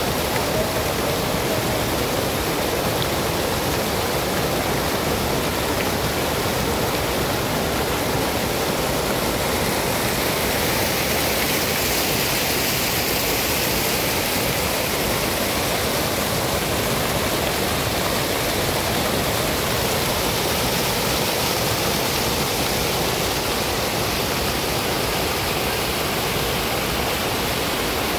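Rows of arching fountain jets splashing steadily into a shallow pool: a continuous, even rush of falling water.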